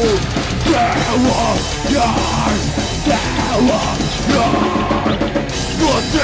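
Metalcore band playing a song: drum kit, electric guitar and vocals.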